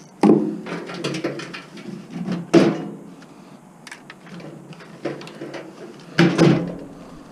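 Metal clanks and knocks of appliance parts being handled and pried apart for scrap, with a short ring after the hits. The loudest come just after the start, at about two and a half seconds, and a double knock near the end.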